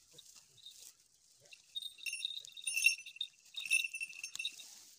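Small metal falconry bell on a goshawk jingling as the hawk shifts on its kill, ringing in short spells that are loudest around three and four seconds in.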